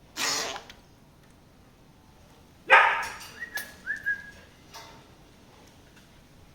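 A lory (nuri parrot) giving two harsh squawks, one just after the start and a louder one a little under three seconds in, followed by a few short rising whistle-like notes.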